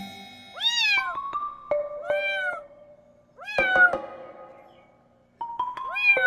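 A month-old kitten meowing four times, each short call rising and then falling in pitch, over background music with long held notes.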